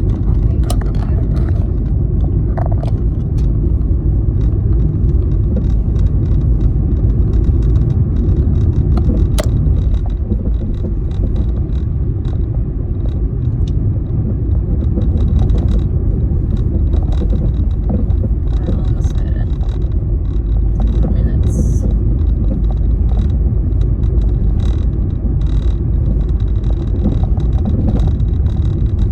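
Steady road and engine rumble of a car being driven, heard inside the cabin, with small scattered clicks and rattles.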